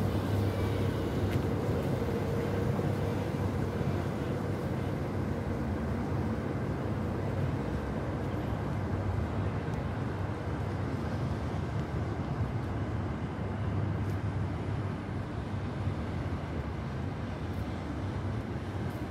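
Steady low rumble of city motor traffic and engines, continuous and even, with no single vehicle standing out.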